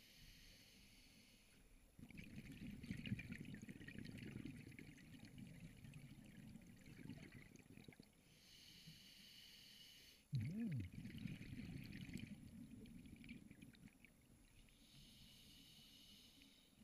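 Faint scuba breathing through a regulator underwater: a hissing inhale, then a longer stretch of bubbling exhaled air, in a slow cycle. Inhales come near the start, about halfway and near the end, with bubbling exhales between them.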